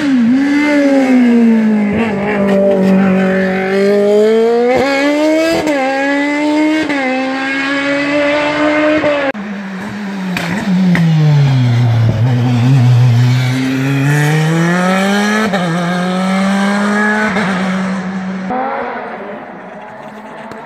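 Two hill-climb race cars, a sports prototype and then a single-seater, take a hairpin one after the other. Each engine's note drops as the car slows for the bend, then climbs through quick upshifts as it accelerates away. The second car fades out near the end.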